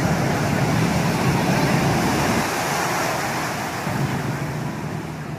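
Heavy ocean surf breaking and churning white over rocks, a dense steady rush of water with a low hum underneath. It grows gradually quieter from about three seconds in.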